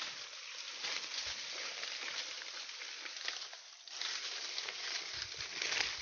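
Rustling and crackling of leaves, twigs and grass as people push through dense forest undergrowth on foot, with a brief lull a little over halfway through.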